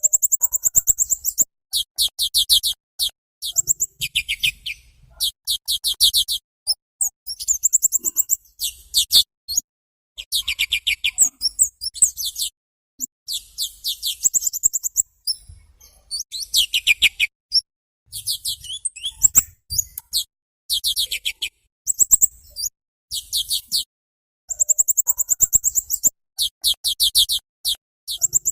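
A songbird singing high, rapid trills and chattering note series in bursts of about a second, repeated with short gaps, some phrases ending in sweeping notes.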